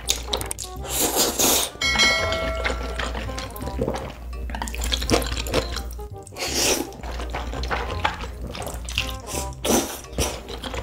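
Several long, wet slurps of black bean sauce noodles (jjajangmyeon) being sucked into the mouth, over background music with a steady low bass.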